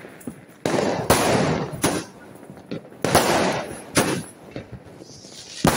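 Aerial fireworks bursting: several sharp bangs, roughly a second apart, each fading off in a hiss, with another loud bang at the very end.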